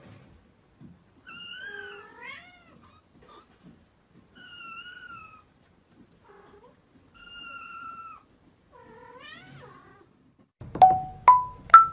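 Kittens meowing: four high-pitched meows of about a second each, spaced a couple of seconds apart. Near the end, three short, sharp plinks that step upward in pitch, much louder than the meows.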